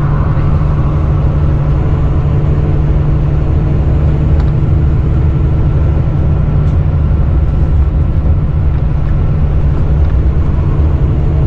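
Volvo B9R coach cruising at a steady speed, heard from inside the passenger cabin: an unchanging low drone from its rear-mounted six-cylinder diesel engine, with several steady tones and the hiss of tyres on the road.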